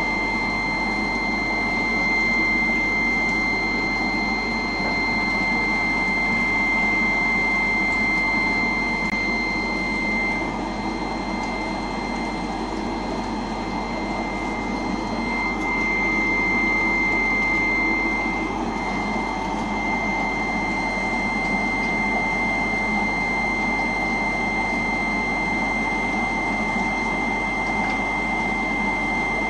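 Aquarium equipment running: a steady mechanical hum and rush with a constant high-pitched whine.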